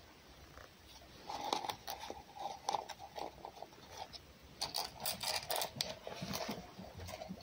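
Wild fox chewing its food: irregular crunching and clicking in short clusters, starting about a second in.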